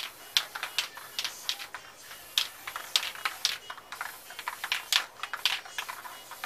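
A crumpled sheet dabbed and pressed against a wet spray-painted canvas, crinkling and tapping in short, irregular clicks, several a second.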